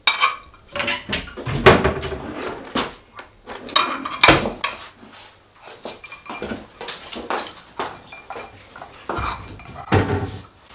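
Dishes and cutlery clinking and knocking: a bowl, plate and spoon being handled and set down, in a run of short, irregular clinks and knocks.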